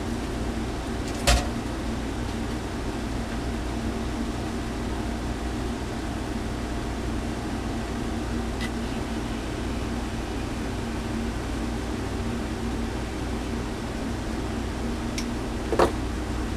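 Steady electrical hum with fan-like air noise, broken by a short sharp knock about a second in and another near the end.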